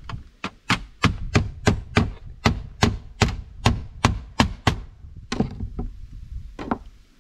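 Hammer driving a nail through sheet-metal roof flashing into a wooden platform: about a dozen quick, sharp blows at roughly three a second, then two slower blows near the end.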